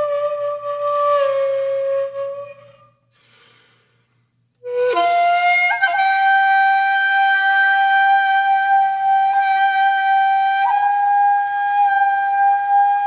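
Solo shakuhachi (Japanese bamboo flute) music of the honkyoku kind, playing slow long notes. A held note with vibrato fades out about two and a half seconds in. After a short silence, a breathy attack opens a long held higher note that bends upward near the end.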